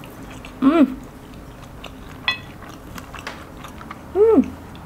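A woman eating spaghetti close to the microphone, with soft chewing and mouth clicks. Twice, about a second in and near the end, she gives a short "mm" hum of enjoyment that rises and then falls in pitch.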